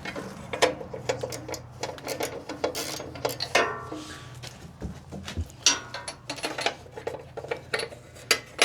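Irregular metal clinks and knocks of a socket wrench and spark plug socket being handled and fitted onto a spark plug.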